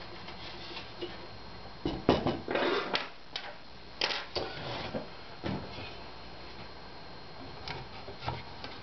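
Knocks and a brief scrape as an aluminium-extrusion 3D-printer Y-axis frame and its bed plate are handled and set down on a wooden workbench. The loudest knocks come about two seconds in with the scrape just after, more knocks at about four and five and a half seconds, and a few lighter clicks near the end.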